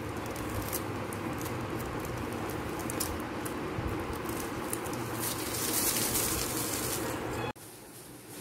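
Newspaper strips rustling and crinkling as they are handled and gathered by hand, over a steady low hum. It cuts off abruptly near the end.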